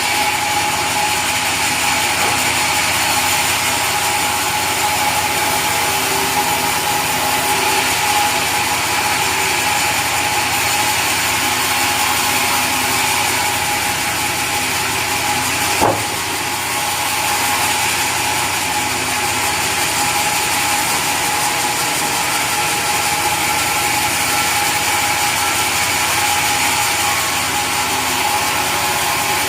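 Sawmill saw running steadily as it cuts mahogany, a machine drone with a steady high tone and one sharp knock about halfway through.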